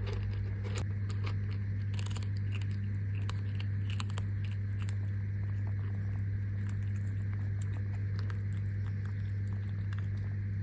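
A steady low electrical-sounding hum with many irregular small clicks and crackles over it.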